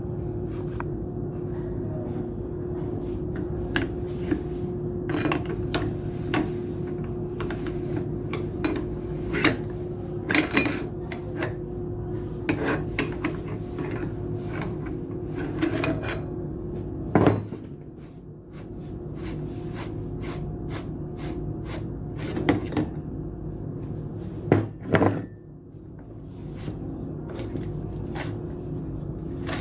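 Metal tools and the parts of a submersible pump's pump end clinking, knocking and scraping as it is taken apart, with irregular sharp clanks, the loudest about 17, 22 and 25 seconds in, over a steady background hum.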